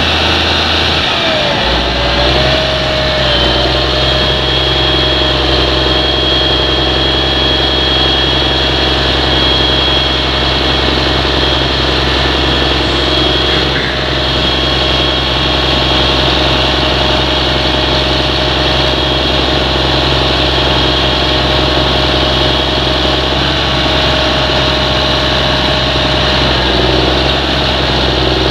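Fendt 930 Vario tractor's six-cylinder diesel engine running steadily, its note changing about two seconds in, with a steady high whine over it.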